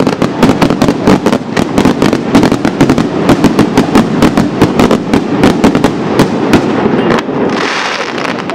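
Professional fireworks display: a rapid, unbroken barrage of bangs from shells bursting and launching, several a second. About seven and a half seconds in, the bangs thin out into a hissing crackle as comets rise.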